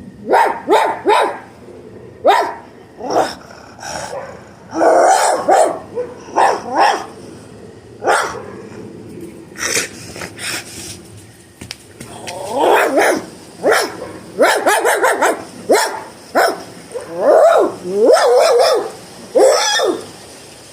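A person imitating a puppy with the voice: a string of short barks and yips, with a few longer drawn-out calls between pauses.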